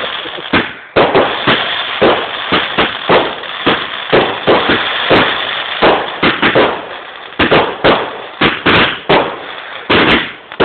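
Fireworks going off in rapid succession: a string of sharp bangs, two or three a second, with a dense crackle between them.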